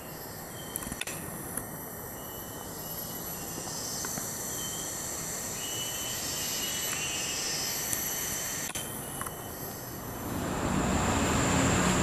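Forest ambience: a steady high-pitched insect drone with a few faint chirps and light clicks. About ten seconds in, it changes abruptly to a louder steady rushing noise with a low rumble.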